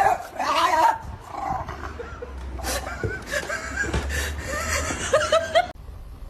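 A dog whining in high, wavering calls, in two stretches, the second cut off suddenly near the end.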